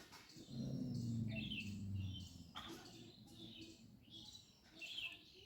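Birds chirping in short, scattered calls, with a low drawn-out sound in the first two seconds.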